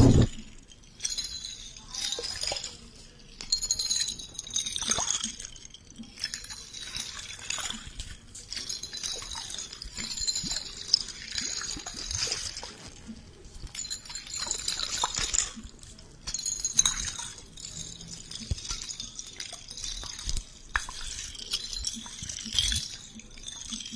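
Close-miked wet, crackling ASMR trigger sounds in a long run of short, irregular bursts.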